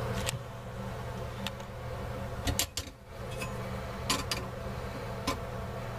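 A few sharp metal clicks and taps of a flat screwdriver working a screw loose on the underside of a bathroom faucet, over a steady low hum.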